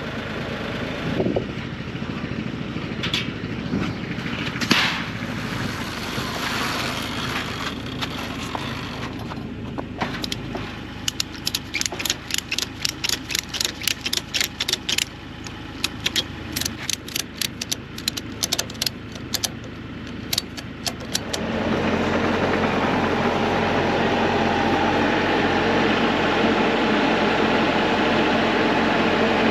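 Bobcat E42 mini excavator's diesel engine running, with a few knocks and then a run of sharp, regular clicks, about two to three a second, lasting some ten seconds. About 21 seconds in, the engine speeds up and runs louder and steady.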